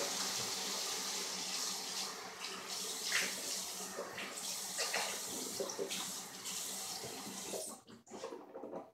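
Bathroom tap running into a sink, with a few light knocks against the basin, cut off about eight seconds in.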